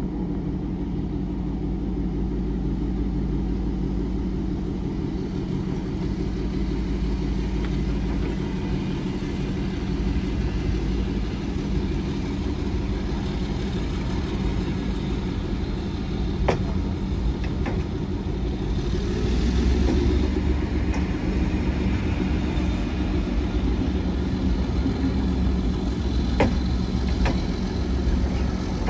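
Diesel engine of a stationary passenger train idling steadily, a low drone, with a few sharp clicks and a brief rise in hiss about two-thirds of the way through.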